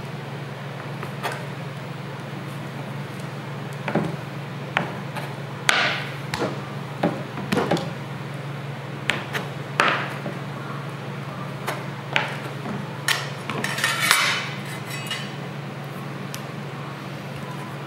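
A metal dough cutter chops through a large mass of pizza dough and knocks against the cutting board in irregular sharp knocks, most of them in the middle stretch. A steady low hum runs underneath.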